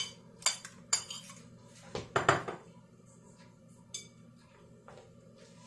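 A metal fork clinking and scraping against a ceramic plate as bay leaves are pushed off it into a pot: a few sharp clinks, then one louder scrape about two seconds in, then a couple of faint ticks.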